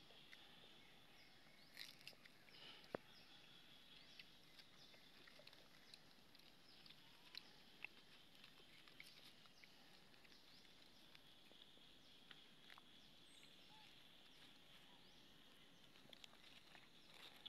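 Near silence: faint outdoor ambience with a steady high-pitched hiss and a few faint scattered ticks, the sharpest about three seconds in.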